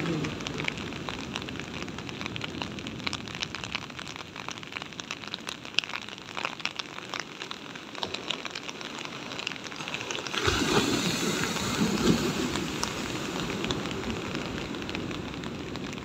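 Heavy surf breaking and washing up the shore: a steady hiss of churning foam with fine crackling, swelling louder for a couple of seconds from about ten seconds in as a wave breaks.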